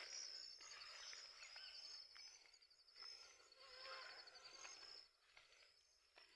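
Faint outdoor ambience of insects trilling: a steady, high, rapidly pulsing chorus, with a few faint bird calls.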